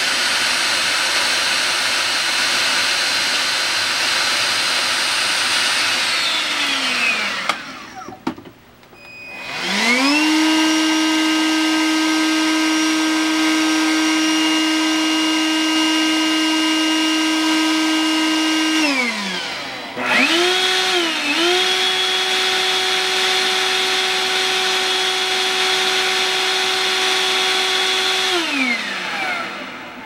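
18V cordless handheld vacuum cleaners running one after another, each motor giving a steady high-pitched whine. A Makita CL282FD runs first and winds down to a stop about seven seconds in. A HiKOKI R18DA spins up a couple of seconds later, runs steadily, and winds down about 19 seconds in. Another cordless vacuum starts straight after, dips briefly in pitch, runs steadily and winds down near the end.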